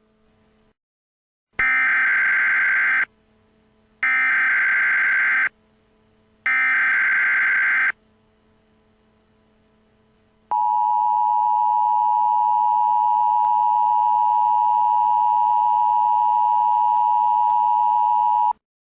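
Emergency Alert System header: three short bursts of digital data tones, each about a second and a half long, then the two-tone EAS attention signal held steady for about eight seconds before it cuts off. This sequence marks the start of a new emergency broadcast message.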